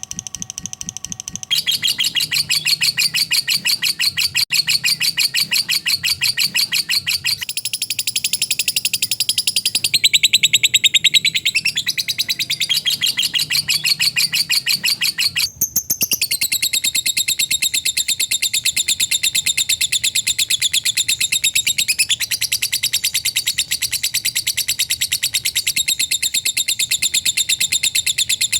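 Lovebird ngekek: a long, very fast, tightly packed chattering trill of high chirps, changing character abruptly several times as if recordings are spliced together.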